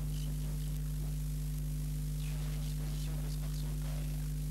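Steady electrical mains hum, a low drone with higher overtones, over faint crackle and hiss.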